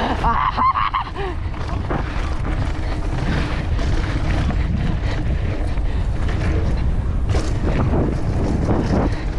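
Wind rushing over the microphone and tyres rolling on dirt as a mountain bike is ridden down a dual slalom track, with the odd knock from bumps.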